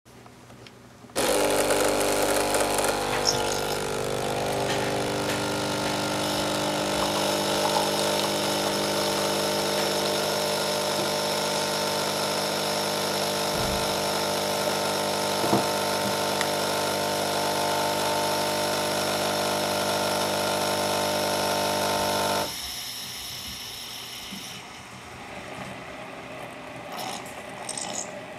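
Senseo coffee pad machine's pump running with a steady hum as it brews a café latte, starting about a second in and cutting off well before the end. After it stops there is a fainter, irregular sound with a few small clicks as the last coffee runs from the spouts.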